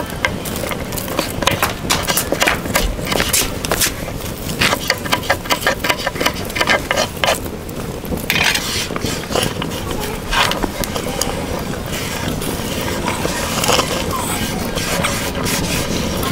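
A kitchen knife clicking and scraping against a wooden cutting board as raw potatoes are cut, with a quick run of sharp clicks in the first half and only scattered ones after.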